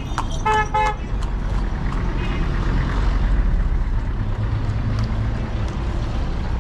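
Two short vehicle-horn toots about half a second in, over the steady low rumble of engines and street traffic.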